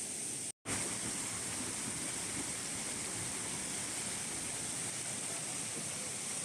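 Steady rushing of a forest stream or waterfall, with a steady high hiss over it. It cuts out completely for an instant about half a second in.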